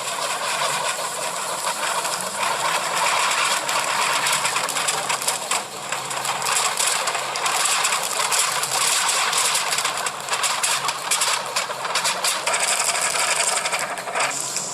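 Anar (flower-pot fountain firework) spraying sparks with a loud, continuous hiss and crackle, which flares up suddenly at the start.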